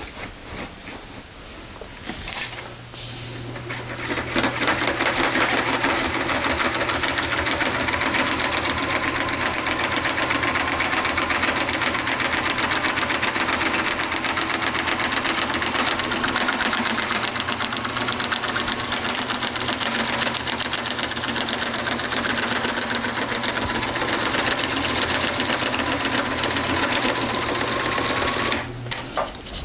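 Electric home sewing machine stitching a seam through layers of heavy reflective tarp: it starts a few seconds in, runs steadily with its motor hum and rapid needle stitching, and stops shortly before the end.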